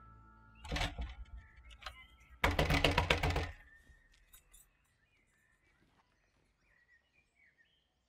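A hand banging on a wooden front door: a brief knock about a second in, then a second of rapid, loud banging. Faint bird chirps follow.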